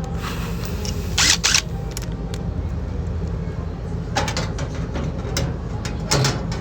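Short metallic knocks and clanks as washer parts are handled during reassembly, in three brief clusters, over a steady low hum.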